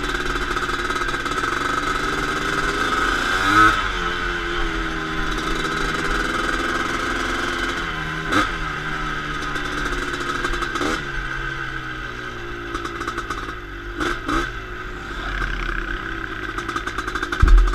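Suzuki LT250R quad's 250 cc two-stroke single-cylinder engine running under way, its pitch rising and falling several times with the throttle. A few short knocks sound over it, and the engine runs lower for a while near the end.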